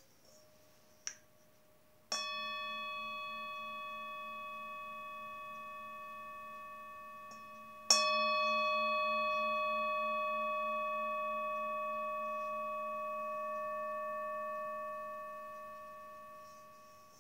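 Metal singing bowl struck twice with a wooden striker, about six seconds apart, the second strike louder. Each strike rings on with several clear overtones over a low hum that pulses slowly, fading away near the end.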